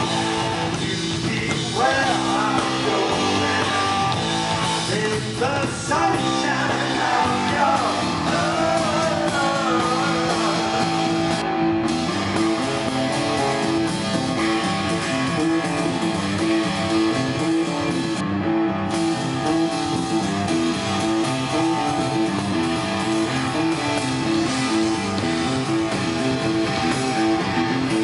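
Live rock band playing, with electric guitar and drum kit. A lead line bends and slides through roughly the first ten seconds, then a riff repeats steadily.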